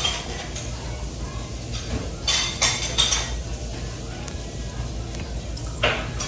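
Restaurant dishes and cutlery clinking and clattering, with a few sharp clatters about two to three seconds in and again near the end, over a steady low hum.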